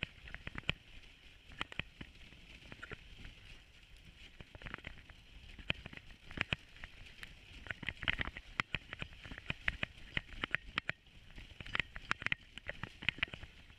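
Dog sled moving along a snowy trail: a steady hiss and rumble of the runners on snow, broken by frequent irregular clicks and knocks as the sled and its fittings rattle.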